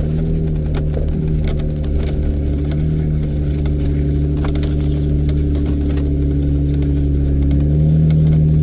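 Off-road vehicle's engine running steadily at low revs while driving the trail, growing a little louder near the end, with scattered light clicks.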